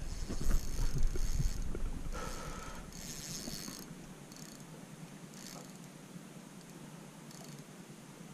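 Fishing reel buzzing and clicking in several short bursts while a freshly hooked fish is played on a bent rod, the drag giving line or the reel being cranked. A low rumble of handling sits under the first second and a half.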